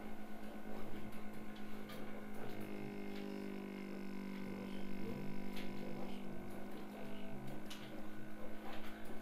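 Steady electrical hum with evenly spaced overtones, with a few faint scattered ticks over it.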